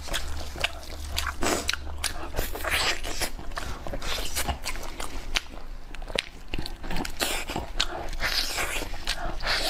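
Close-miked eating: biting and chewing roasted meat off the bone, a dense run of small clicks and crunches.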